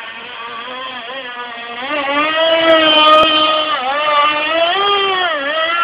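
Traxxas Nitro Vee RC boat's small nitro engine running at high revs with a high whine, getting louder and rising in pitch about two seconds in as the boat speeds up, then dipping briefly twice as the throttle eases and comes back.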